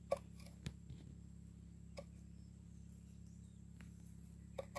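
A few faint, sharp clicks of a knife cutting through green onion seedlings against a wooden board, spaced unevenly, over a steady low hum.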